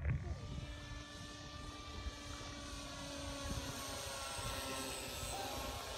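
Battery-electric radio-controlled model warplane flying overhead, its motor and propeller giving a steady, fairly even drone over a low background rumble.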